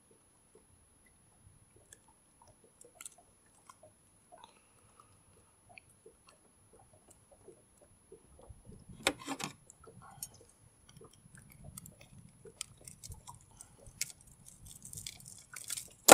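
Small clicks, scrapes and rustles of a small pike being unhooked from a many-hooked lure with jaw spreaders and a gloved hand. A louder burst of handling noise comes about nine seconds in, and the noises come thicker and louder near the end.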